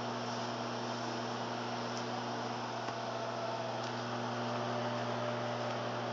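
LG countertop microwave oven running mid-cook: a steady low hum over a hiss of fan noise.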